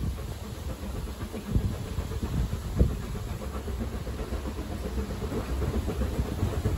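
Small steam tank locomotive approaching under steam, a low rumble of its exhaust and its wheels on the rails with a few knocks, slowly growing louder.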